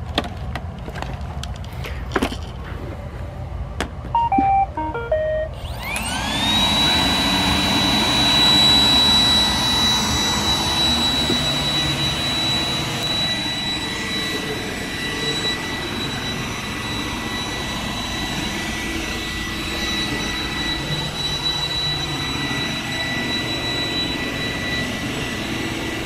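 A few handling clicks as an iRobot Roomba 980 robot vacuum is set down on carpet. About four seconds in, it plays its short stepped start-up tune, then its vacuum motor spins up with a rising whine that settles into a steady high whine while it runs over the carpet.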